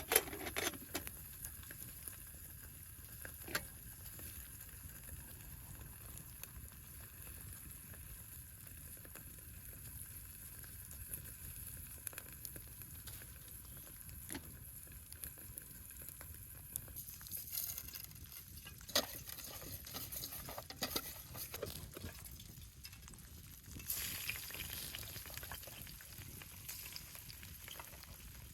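A steady sizzle over a campfire, with irregular pops and crackles scattered through it.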